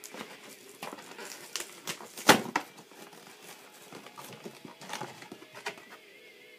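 Plastic toy pieces and packaging being handled: scattered clicks and light knocks, with one sharper knock about two seconds in.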